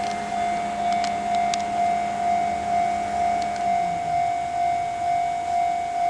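Japanese railway level-crossing warning bell ringing, one steady tone struck in an even rhythm just under twice a second. Beneath it a low drone from a passing train drops in pitch and fades out about two-thirds of the way in.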